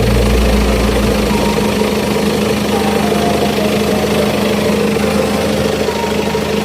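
BMW 520d's four-cylinder diesel engine idling steadily.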